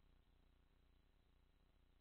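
Near silence, with only a faint steady low hum.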